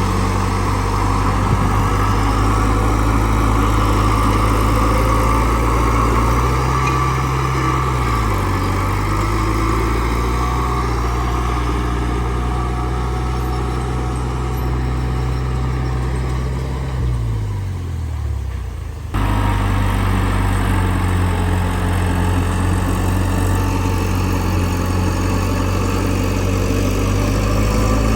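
Diesel engine of heavy earthmoving machinery running steadily. Its pitch shifts about eight seconds in, sags and falls away near eighteen seconds, then jumps back abruptly.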